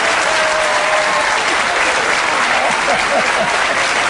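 Studio audience applauding steadily, with a few voices mixed into the clapping.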